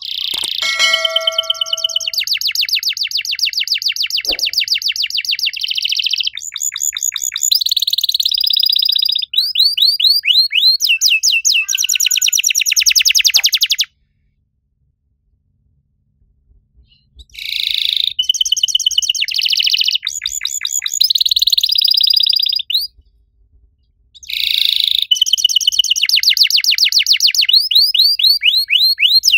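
Domestic canary singing long, fast trilled phrases of high chirps and rolls, the active 'cuit cuit' song. The song stops for about three seconds midway, then starts again and runs on in long bursts.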